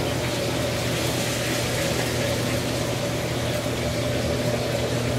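Steady rushing roar with a constant low hum: the running equipment of a commercial wok kitchen, its burners and ventilation going.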